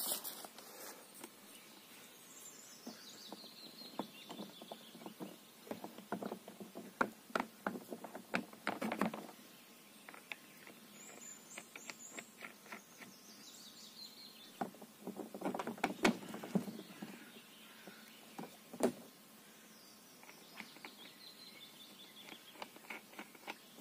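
Oars rattling and clicking as they are handled and fitted into the oarlocks of an Aqua 2800 inflatable PVC boat, in two bouts of quick knocks. A bird sings a short descending phrase every several seconds.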